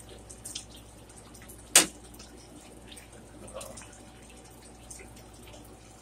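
Close-up wet chewing and lip-smacking of a person eating sauced oven-baked chicken, many small wet clicks, with one sharp click about two seconds in.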